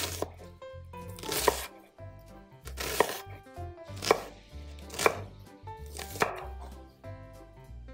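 Kitchen knife chopping onion on a bamboo cutting board: about five sharp knocks of the blade on the board, roughly a second apart.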